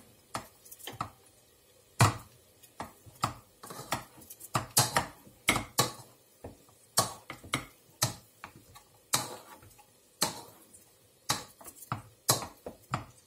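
Hand potato masher working boiled potatoes in a metal saucepan: irregular clicks and knocks, a few a second, as the masher strikes the pan.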